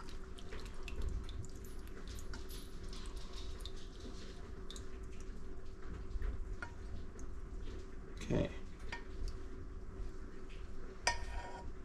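Metal saucepan clinking and scraping against a wire mesh sieve as the last of the hot rendered beef tallow is tipped and shaken out through it, with a knock about eight seconds in and a couple of clinks near the end.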